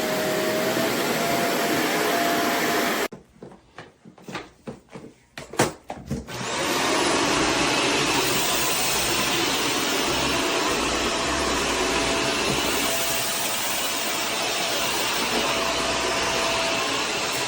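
Shark Stratos upright vacuum running steadily, then cutting out about three seconds in; a few quiet clicks and a sharp knock follow, and about three seconds later it starts again, its motor whine rising as it comes up to speed, and runs on steadily.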